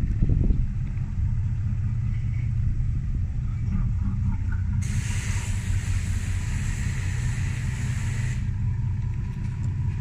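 A motor yacht's engine running at low speed as the boat manoeuvres, a steady low rumble. About halfway through a hiss cuts in suddenly and stops about three seconds later.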